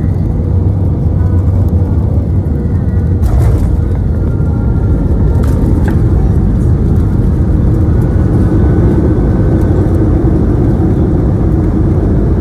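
Steady low rumble of an Airbus A320 heard from inside the cabin during its landing, with a few brief knocks about three and six seconds in.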